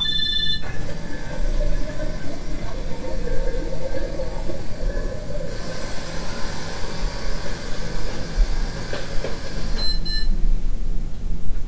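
A 1993 Lego Duplo battery-powered toy train running on its test drive: its small electric motor and gears, freshly cleaned and greased, whirring as the plastic wheels rumble along. A short electronic beep sounds at the very start and a briefer one near the end.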